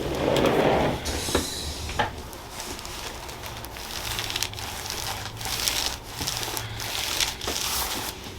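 Rustling and crinkling from a body shifting on a chiropractic treatment table, with sharp clicks about a second and a half and two seconds in.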